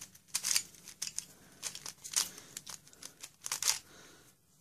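Dayan Megaminx twisty puzzle being turned by hand: a quick, irregular run of plastic clicks and clacks as its faces turn. The puzzle is new and still tight, not yet tensioned.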